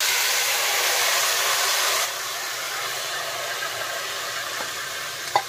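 Marinated chicken sizzling as it hits hot oil with whole spices in a steel pot: a loud hiss that starts suddenly, strongest for the first two seconds, then settles into a steady, slightly quieter frying sizzle.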